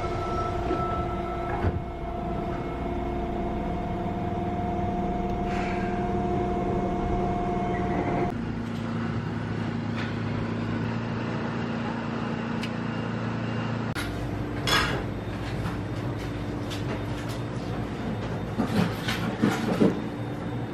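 Inside a Fukuoka City Subway car on the Kūkō Line: a steady hum of the train's equipment with several held tones. Near the end, a few sharp clicks and knocks.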